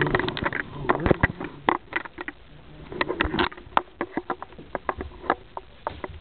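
Irregular light knocks and taps from a person dancing on a carpeted floor, hands and shoes striking the floor, with a brief bit of voice at the start.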